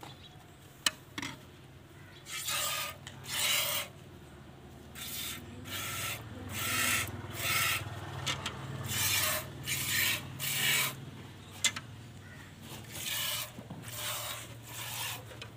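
Water buffalo being milked by hand into a metal pail: short hissing squirts of milk hit the pail one or two a second, starting about two seconds in, with a brief pause about two-thirds of the way through.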